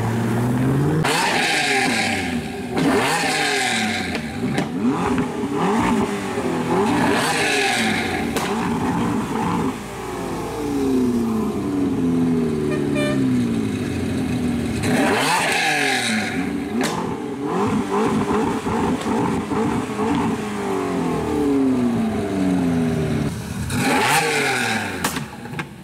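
High-performance car engines revved hard: first cars accelerating away, then a Lamborghini Diablo's V12 revved over and over while standing still. Each rev climbs sharply and falls back toward idle.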